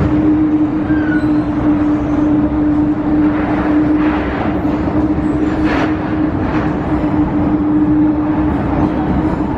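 MTR Tsuen Wan Line electric train running, a steady hum held at one pitch over the rumble and rattle of the train.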